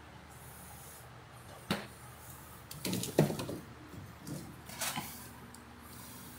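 Handling noise: a few short knocks and rubs, the loudest about three seconds in, over a faint steady hiss.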